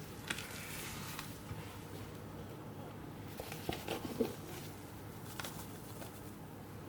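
Light kitchen handling noises: a few soft taps and a brief cluster of scraping sounds about halfway through, over a faint steady hiss.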